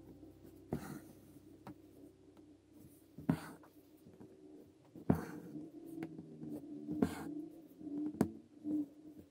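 Embroidery needle and thread being drawn through coarse linen fabric: several short scratchy pulls, a second or two apart.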